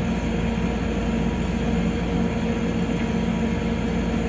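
Steady low machine hum, even in loudness, with a few faint steady tones in it.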